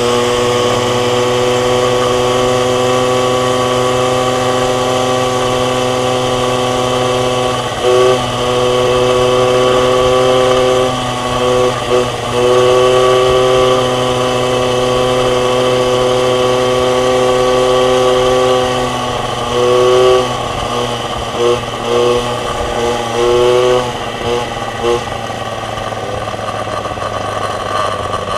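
MBK 51 moped's 50 cc two-stroke engine running at steady high revs under way. The throttle is briefly cut and reopened about eight and twelve seconds in and several times in quick succession past twenty seconds, and the engine runs at lower revs near the end.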